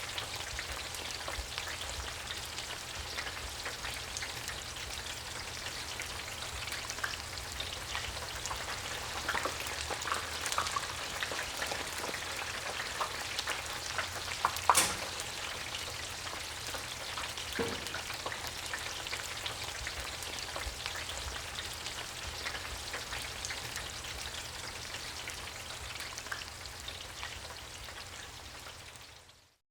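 French fries deep-frying in a commercial fryer basket submerged in oil: dense crackling and bubbling with many small pops, one sharper pop about halfway through. Fades out near the end.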